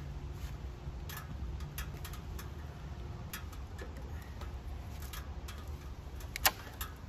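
Scattered light clicks and ticks at irregular spacing, about one or two a second, over a low steady rumble, with one sharper click near the end.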